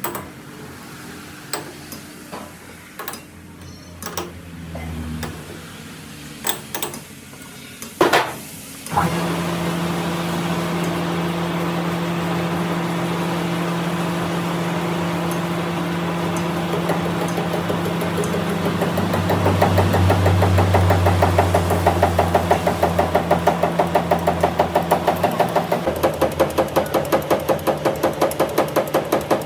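A few scattered metal clicks and knocks, then a metal lathe starts about nine seconds in and runs steadily. From about twenty seconds in a rhythmic knocking sets in, about three beats a second.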